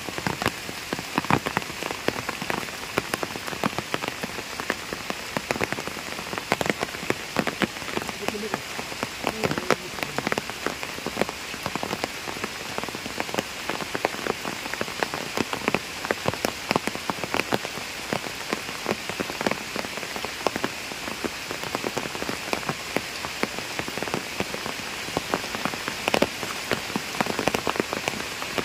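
Heavy rain falling on a pond's surface: a steady hiss dense with sharp ticks of individual drops.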